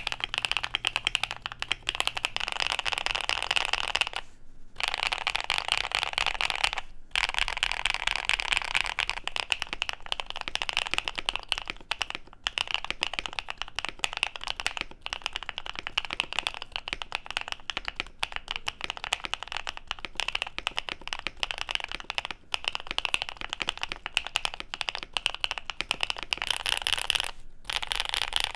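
Fast, continuous typing on a KBD67 Lite mechanical keyboard with Coley linear switches: a dense run of key presses, each with a creamy, poppy bottom-out, broken by a few short pauses.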